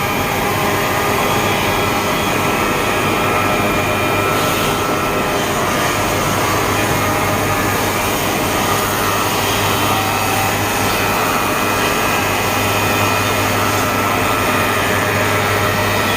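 Six-head wood moulding machine running, its cutterheads spinning at speed in a loud, steady mechanical drone with a low hum and a faint high whine.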